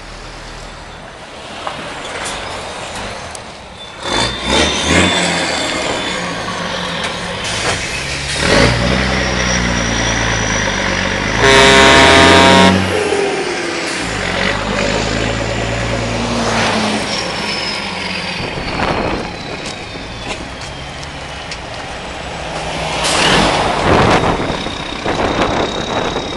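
DAF XF 105 460 lorry with a straight-piped exhaust, its 12.9-litre straight-six engine pulling past, the engine note rising and falling through gear changes. Near the middle it sounds its air horn once, for about a second, the loudest moment; a loud burst of noise follows near the end.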